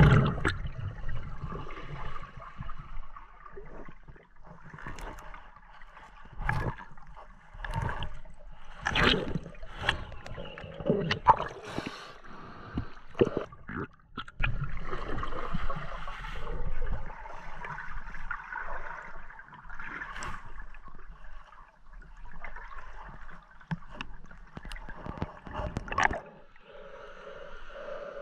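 River water gurgling and sloshing around a snorkeler's camera at or below the surface, broken by many irregular sharp clicks and knocks.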